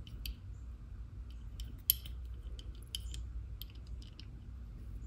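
Small brass thumb screws being handled and threaded by hand into a metal lathe crotch center: scattered light metallic clicks and ticks, the sharpest about two seconds in.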